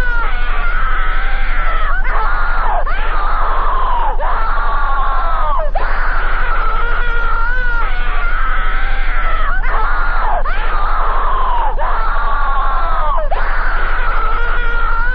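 Fan-made emergency alert (EAS) alarm audio: a loud, continuous wail of several pitched tones that slide down and back up, breaking off and restarting every one to two seconds, over a steady low hum.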